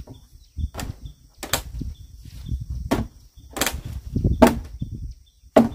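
Six sharp knocks at uneven intervals, about a second apart, over a low rumbling noise, with a faint insect chirping about three times a second.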